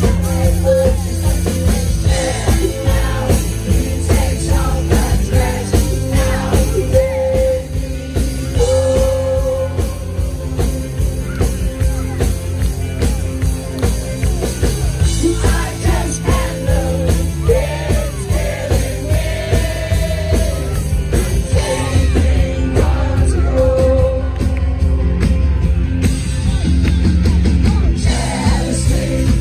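Live band playing a rock song, with singing over a steady bass and beat.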